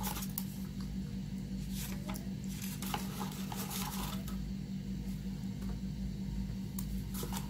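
Faint plastic clicks and scrapes of an eyeliner pen and its cap being worked at with the teeth and fingers, scattered through the first half and once more near the end, over a steady low hum.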